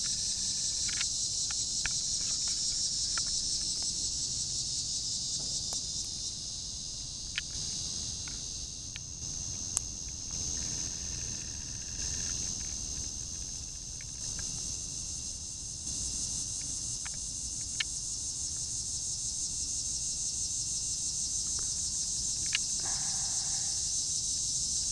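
Steady high-pitched buzzing chorus of night insects such as crickets, with a few scattered sharp clicks.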